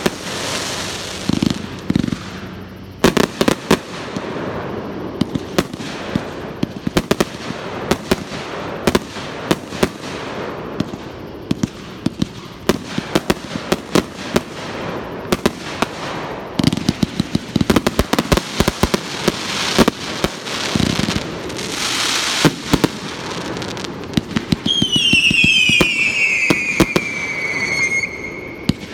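Fireworks display: aerial shells bursting in many sharp bangs with crackling, thickest in a volley about two-thirds through. Near the end a high whistle falls in pitch for about three seconds.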